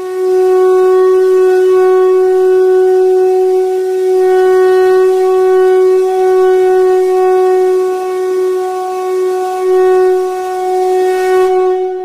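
A loud, steady drone held on one unchanging note, with a clear stack of overtones and slight swells in loudness.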